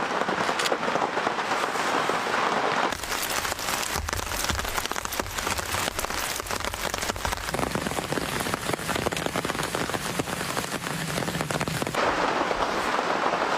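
Heavy rain falling steadily. From about three seconds in it turns into a dense run of close, sharp drop hits, with a low rumble underneath for a few seconds, then goes back to a smoother hiss near the end.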